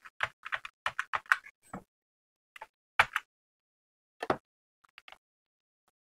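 Computer keyboard keystrokes: a quick run of about a dozen key clicks in the first two seconds, then a few scattered single clicks.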